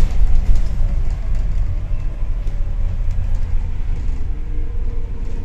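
Alexander ALX400 double-decker bus heard from inside on the upper deck, running downhill: a steady low rumble of engine and road noise with small body and window rattles. A faint whine slowly falls in pitch near the end.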